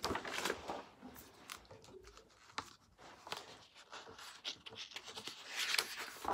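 Pages of a large picture book being handled and turned: paper rustling with light irregular clicks and taps, and a louder swish near the end as a page flips over.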